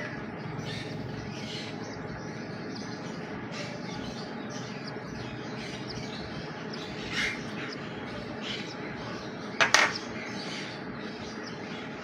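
Hatching parrot chick calling from its opened shell: many faint short peeps, with two louder squawks about seven and ten seconds in, over a steady background hum.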